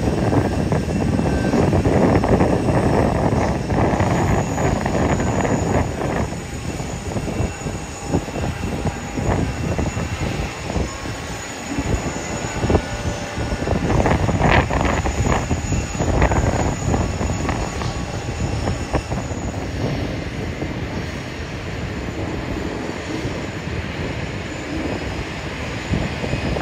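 Jet airliner engines rumbling as an aircraft passes at the airport. The rumble is loudest for the first six seconds or so, then eases to a lower steady level, with a few crackles about halfway through.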